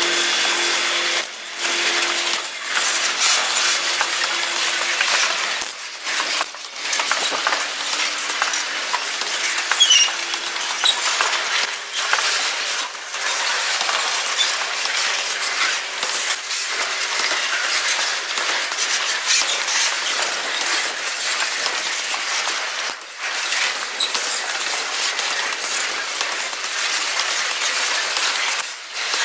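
Freight train of loaded fuel tank cars rolling past, sped up to double speed: a fast, high-pitched metallic clatter and clinking of wheels on the rails, with a few brief squeals about ten seconds in.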